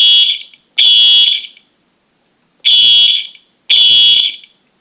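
Simplex fire alarm horn sounding the code 3 (temporal-three) pattern: short, loud, buzzy blasts about a second apart in groups of three, with a pause of about a second and a half between groups.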